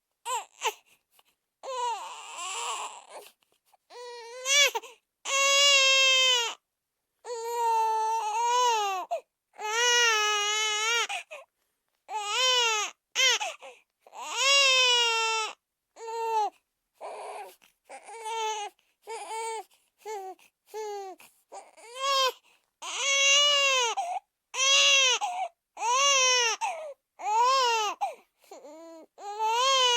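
A baby crying: a long run of wailing cries, each rising and falling in pitch, with short gaps for breath between them.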